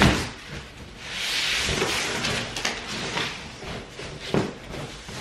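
Large cardboard shipping box being opened and handled: a thump as a flap is pulled back, then a second or two of cardboard scraping and rustling, and a knock later as the box is moved upright.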